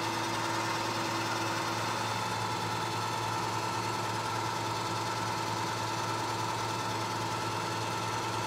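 Vertical milling machine with an end mill cutting a flat along a round metal bar, a steady machining drone with a high tone over a low hum.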